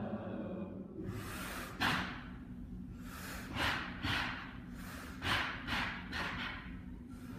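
A group of young voices making short, breathy hissing and gasping sounds in a vocal improvisation, about ten bursts at uneven spacing starting about a second in.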